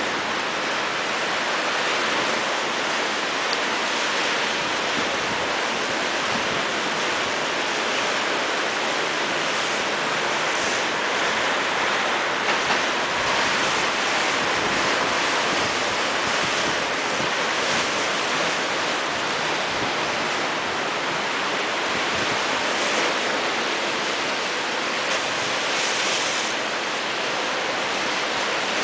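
Rough sea surging and washing against a stone seawall: a steady, continuous rush of churning surf.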